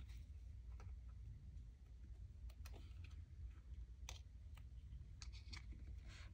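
Faint, irregular light clicks and ticks of tiny beads and a metal ball-headed pin being handled, over a low steady hum.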